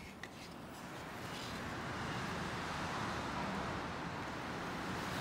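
Storm wind blowing as a steady roar, growing louder over the first two seconds as a door opens onto a balcony, with a few light clicks at the start.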